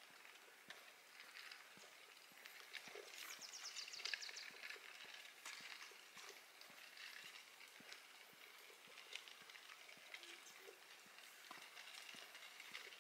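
Faint footsteps walking along a forest trail, a quiet run of irregular soft steps.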